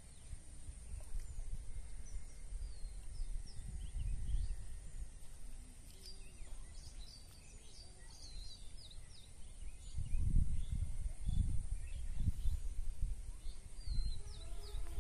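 Small birds chirping in many short calls, busiest around the middle and again near the end, over uneven low rumbles of wind on the microphone.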